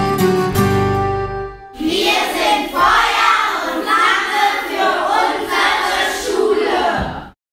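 Acoustic guitar strumming, which stops after about a second and a half. Then a group of children's voices together, cut off suddenly just before the end.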